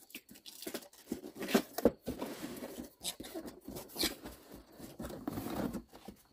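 A cardboard box being opened by hand: flaps pulled apart and folded back, with cardboard and paper rustling and scraping and a few sharper tearing snaps, the loudest about a second and a half and two seconds in and again near four seconds.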